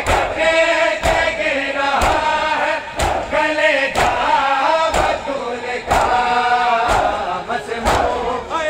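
A large crowd of men chanting a noha in unison, with chest-beating (matam) strikes landing in time about once a second.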